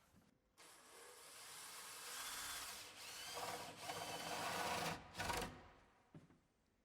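Power drill boring the spindle hole through a timber door. The drill runs for about four seconds, starting about half a second in and building as the bit cuts, then stops, with a brief second burst just after.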